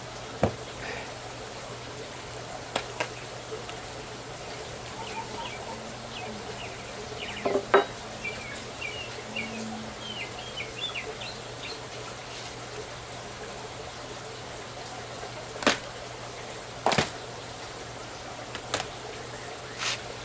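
Several sharp knocks and clacks at irregular intervals from work on a wooden garden bed's boards, the loudest about eight seconds in, over a steady outdoor background with faint high chirps.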